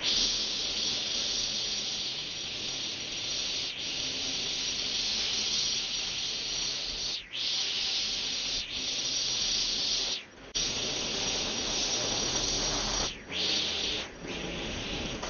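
Cordless electric string trimmer running, its spinning line cutting grass and clover with a steady high whirring hiss that dips briefly several times.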